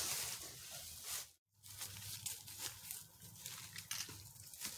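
Footsteps crunching and rustling in dry fallen leaves, with fabric or tarp rustling. The sound drops out completely for a moment about a second and a half in, then continues as scattered crackles.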